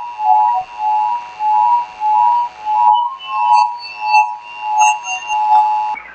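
Emergency Alert System two-tone attention signal sounding steadily over an AM radio broadcast, with bell-like musical notes pulsing over it roughly every half second. The tones cut off just before the end, which marks the switch from the alert tone to the spoken test message.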